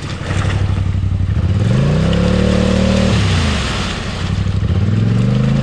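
ATV engine idling, then revved up twice, the first rev held for over a second before dropping back, the second climbing near the end: the rider is trying to drive out of the mud with a broken left rear axle, on three-wheel drive.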